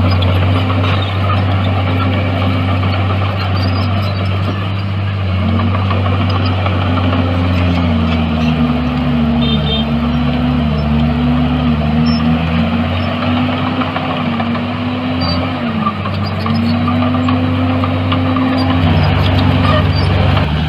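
Heavy diesel engine of earthmoving machinery running steadily under load, its pitch rising and falling again and again as the revs change.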